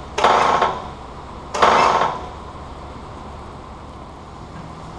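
Two short hissing bursts, about a second and a half apart, from the hydraulic jack rig under the truck's front axle as the axle is being bent. A low steady background hum follows.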